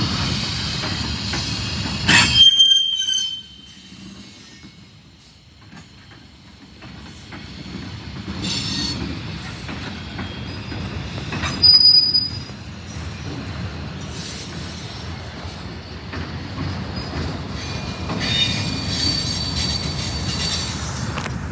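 Train cars rolling slowly past, with steel wheels squealing at times in high tones. Two loud sharp clanks come about two seconds in and near the middle.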